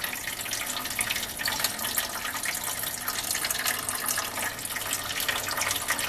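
Water from a Frigidaire refrigerator's ice-maker fill valve running steadily and splashing into the ice maker tray, a flush to clear stale water out of the filter and water lines.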